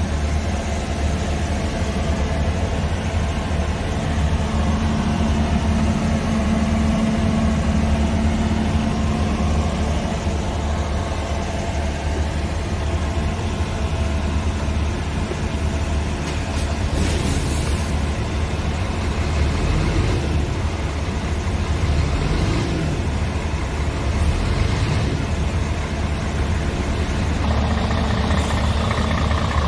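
Scania R500's 13-litre inline-six diesel idling steadily. It is heard first from inside the cab, then near the end up close in front of the open front panel, where it sounds brighter and fuller.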